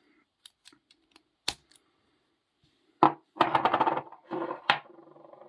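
45 mm padlock handled: scattered small metal clicks, then a sharp click about three seconds in, followed by a jingling metallic rattle.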